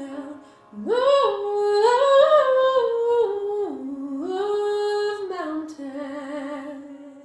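A woman singing alone with no accompaniment: long held notes that step up and down after a short breath about a second in, ending on a long low note with vibrato that fades near the end.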